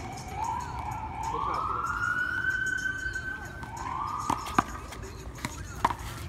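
An emergency-vehicle siren wailing, its pitch rising, holding high, then rising again. From about four seconds in, several sharp smacks of a handball being hit and striking the wall.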